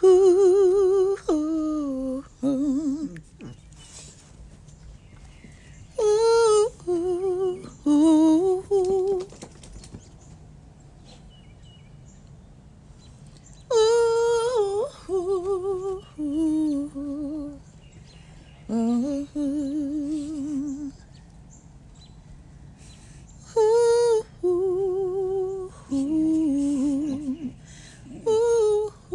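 A woman's voice humming and vocalizing without words, in about five short phrases a few seconds apart, each starting high and stepping down in pitch with a gentle vibrato.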